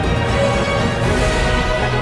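Electronic intro music with a heavy bass. About a second in, a hissing swish sweeps over it and fades within about half a second.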